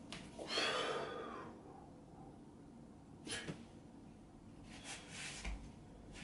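A man's sharp breaths and exhales while flexing through bodybuilding poses: a loud one about half a second in, then two shorter ones about three and five seconds in.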